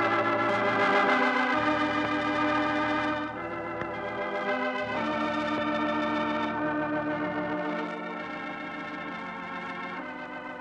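Organ playing the program's closing music in slow held chords that change every couple of seconds, growing quieter in steps toward the end.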